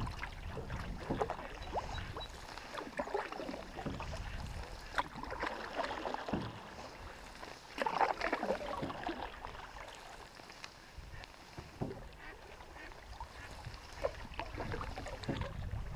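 Canoe paddle strokes through calm river water: irregular splashing and water trickling off the blade, loudest about halfway through. A low rumble of wind on the microphone comes now and then.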